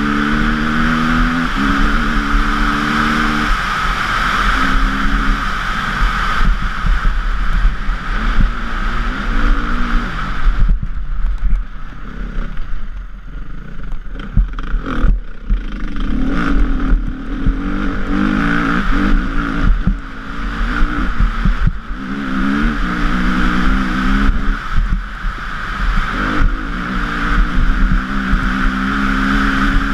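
KTM 350 EXC-F four-stroke single-cylinder dirt bike engine running hard, its revs rising and falling with the throttle and gear changes. About eleven seconds in the engine note drops away for a few seconds, leaving scattered knocks and clatter, then picks up again.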